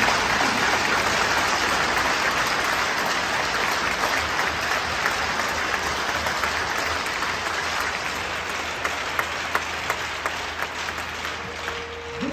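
Hockey arena crowd applauding, loud at first and slowly thinning to scattered claps near the end.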